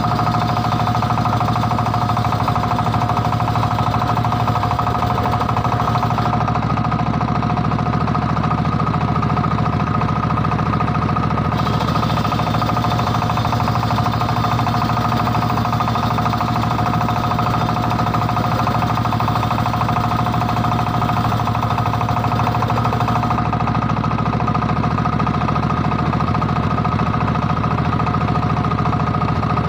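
Engine-driven circular sawmill machine running steadily: a low engine rattle under a steady high whine, unchanged throughout.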